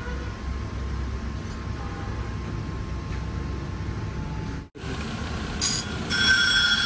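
Low steady workshop rumble, then, in a second clip, a belt-driven grinding wheel spinning. In the last second a steel strip is pressed against it, setting off a loud, steady, high grinding whine.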